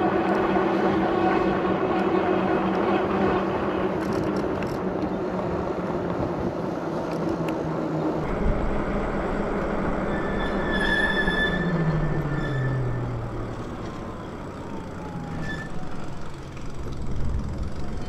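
Electric bike motor whining steadily over tyre and wind noise on pavement. About eight seconds in, a deeper wind rumble takes over, and near twelve seconds the motor whine falls in pitch as the bike slows.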